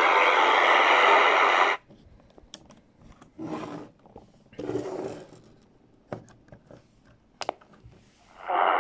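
The Chinese Firedrake jammer on 9970 kHz plays noisily from a Tecsun R-909's speaker and cuts off abruptly about two seconds in as the radio is switched off. Clicks and brief rustles of the radios being handled follow. Near the end the XHDATA D-219 comes on with the same jamming signal, which sounds duller and has less treble.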